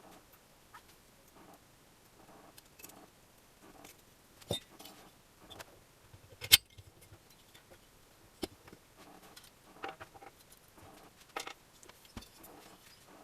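Scattered metallic clicks and clinks of tools and small parts being handled, with a sharper knock about six and a half seconds in.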